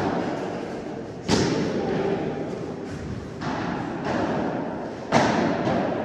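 Padel ball struck back and forth with padel rackets during a rally: sharp, echoing pops about a second in and again near the end, with a softer hit midway.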